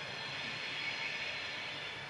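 Steam locomotive giving off a steady hiss of steam.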